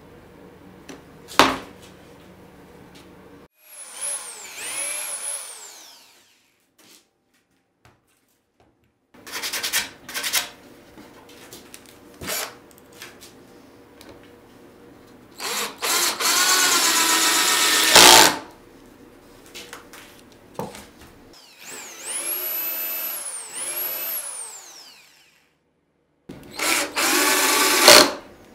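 Black & Decker cordless drill-driver driving wood screws into 10 mm plywood in several separate runs, the motor whine rising and falling with the trigger, the longer runs held steady for about two seconds. A sharp click comes near the start.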